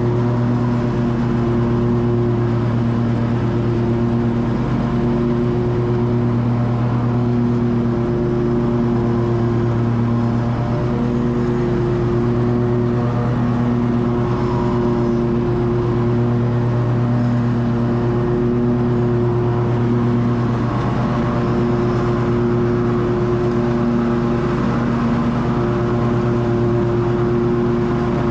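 Lawn mower engine running steadily at a constant speed, a continuous even drone.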